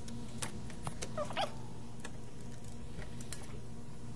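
Steady electrical hum of bench equipment, with a few light clicks of tools being handled in the first second and a half and a brief gliding squeak a little over a second in.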